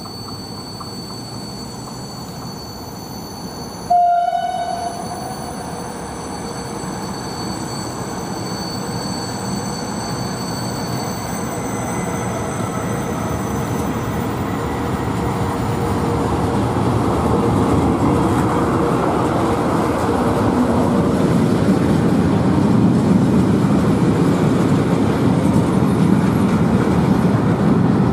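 Freight train passing through a station behind an electric locomotive: a short one-note horn blast about four seconds in, then the rolling noise of the loaded hopper wagons, growing steadily louder as they go by.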